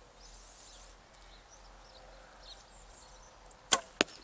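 A Bodnik Slick Stick wooden bow loosed: a sharp snap of the string at release near the end, then about a quarter second later a second sharp knock, the arrow striking the target. Faint birdsong in the background.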